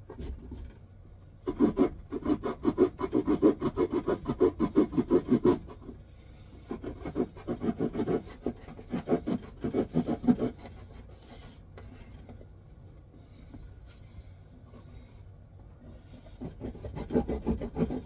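Small hand saw cutting a notch into a wooden stick with quick back-and-forth rasping strokes. The strokes come in runs: a long run after a second or so, a brief pause, a second run, a lighter stretch, then full strokes again near the end.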